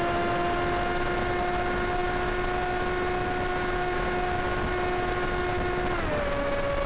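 Electric motor and pusher propeller of a Blade Theory W flying wing running at steady part throttle: a steady whine over the rush of air. About six seconds in the pitch drops as the throttle is eased back.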